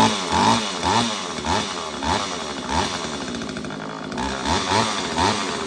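Homelite Super EZ two-stroke chainsaw engine running just after starting, revved up and down in quick repeated throttle blips. It settles briefly before a few more blips near the end.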